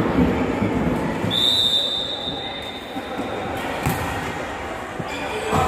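A volleyball referee's whistle gives one long steady blast about a second in, then fades. Sharp thuds of the ball being struck follow at about four and five seconds, with a louder thump near the end, over the constant chatter and echo of the sports hall.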